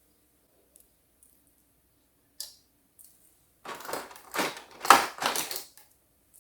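A few small clicks, then about two seconds of dense crinkling and rustling from handling plastic packaging and small plastic toy pieces.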